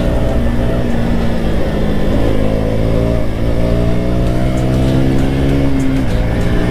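Single-cylinder engine of a KTM RC sport bike running under way. Its pitch climbs as it accelerates, with a brief dip about two seconds in and a drop near the end.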